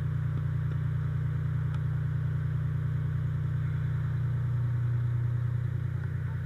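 An engine running steadily: a low, evenly pulsing drone that swells slightly about four seconds in and eases back near the end.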